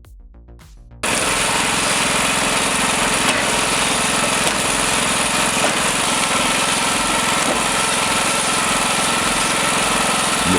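Background music for about a second, then a sudden cut to a loud, steady engine-driven wood-processing machine running, a dense mechanical din with a fast pulse.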